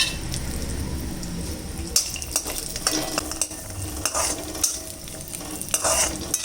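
Cashew nuts shallow-frying in a little oil in a pan with a steady sizzle, while a spoon stirs them and scrapes or clinks against the pan now and then.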